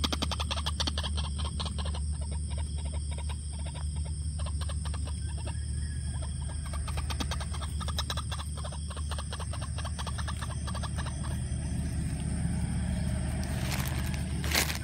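A long, rapid run of clucking calls, typical of a white-breasted waterhen calling, over a steady low hum, with a sharp loud crack just before the end.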